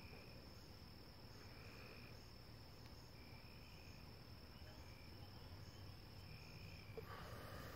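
Faint insects chirping, likely crickets: a steady high-pitched trill that cuts off near the end, with a lower chirp repeating every second or so.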